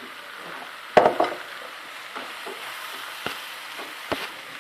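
Chicken and vermicelli filling sizzling in a pan as it cooks off its remaining water, stirred with a spoon that knocks against the pan a few times, loudest about a second in.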